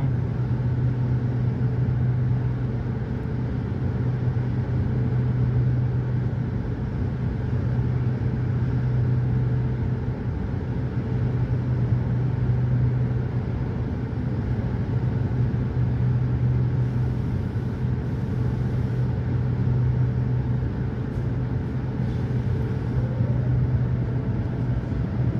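Steady low mechanical hum with a strong low tone, unchanging throughout.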